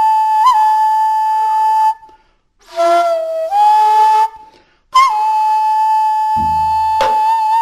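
A Korean traditional wind instrument of the samhyeon yukgak ensemble plays long held notes: one high note, a short break, a lower note that steps up, another break, then a long tone that scoops into pitch. A low drum stroke sounds about six seconds in, with a sharp tap just after.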